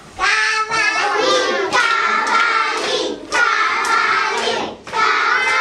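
A large group of young children singing together in unison, in a few short phrases with brief breaks between them, clapping along in time.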